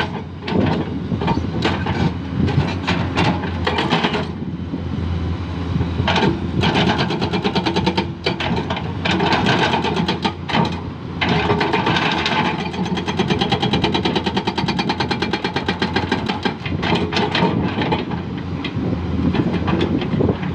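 Excavator working limestone rock: the diesel engine runs steadily while the bucket scrapes and knocks against the rock, with many close-set clicks and knocks.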